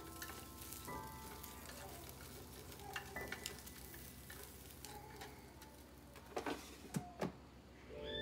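Hot shrimp sizzling in an air fryer's wire-mesh basket as they are turned with wooden chopsticks, with scattered light clicks and taps of the chopsticks against the shrimp and basket. A few sharper clicks come near the end.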